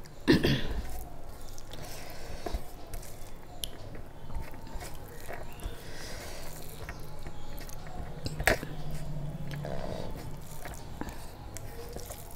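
Close-up eating sounds: chewing and wet mouth noises while rice is squished and mixed by hand on a steel plate. Two sharp clicks, one just after the start and one about eight and a half seconds in.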